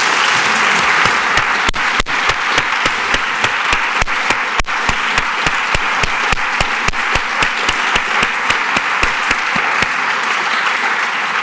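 Audience applauding steadily, a dense patter of many hands clapping that starts to die away at the very end.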